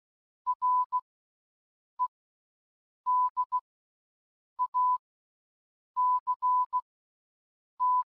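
Morse code sent as a single steady electronic beep tone, in short dots and longer dashes with silent gaps between the letters. The beeps spell R-E-D-A-C-T.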